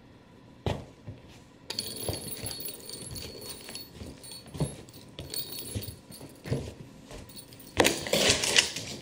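A small cat toy ball jingling and clicking as it is batted and rolls across a hardwood floor. A louder burst of scuffling noise comes near the end.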